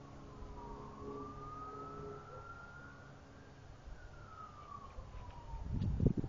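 A siren wailing slowly up and down in the distance over a low rumble. Near the end come a few loud low thumps.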